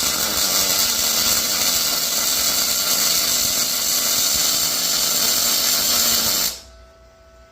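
MIG welding arc, a loud steady hiss and crackle that cuts off abruptly about six and a half seconds in.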